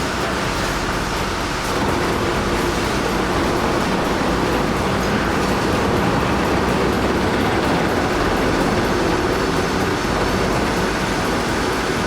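Heavy vehicle or machinery running: a loud, steady engine rumble and din, a little louder from about two seconds in.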